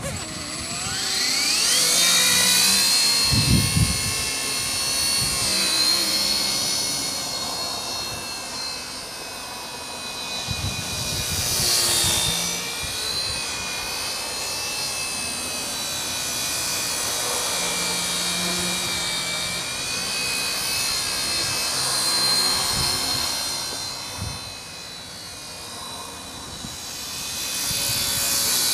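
Wltoys V931 six-channel electric RC helicopter with a three-blade main rotor spooling up, a rising motor whine over the first two seconds. It then flies with a steady high whine and rotor sound that swell and fade as it manoeuvres.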